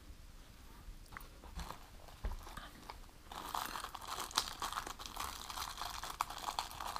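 Small clear plastic accessory bag crinkling and rustling as it is handled and worked open with the fingers, starting about three seconds in, with a few light clicks of plastic parts being handled before that.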